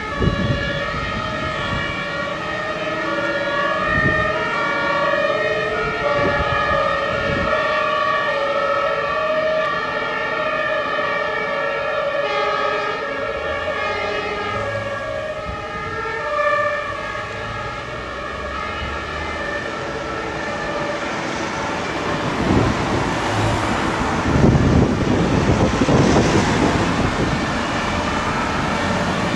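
Fire engines' two-tone emergency sirens (German Martinshorn) sounding on an emergency run, the two pitches alternating steadily. From about three quarters of the way through, the trucks' engine and tyre noise grows loud as they pass close by.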